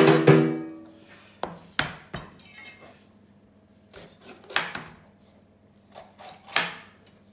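A plastic chopping board set down on a kitchen bench with a loud, briefly ringing knock, then a large kitchen knife slicing a green capsicum on the board: several short cutting strokes in a few groups, the blade scraping and knocking on the board.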